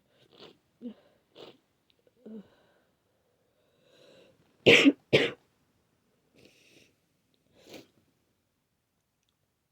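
A person with a wet head cold coughing: a few short, catching breaths, then two loud explosive coughs about half a second apart, then a few softer breaths.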